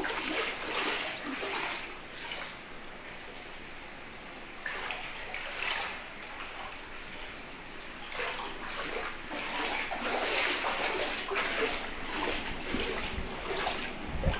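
Splashing of someone wading through floodwater covering a house's floor, step after step, in irregular splashes that grow busier and louder in the second half.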